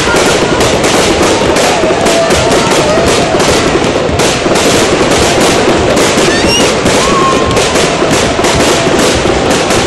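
Fireworks going off in a dense, continuous barrage: loud bangs and crackles following one another several times a second.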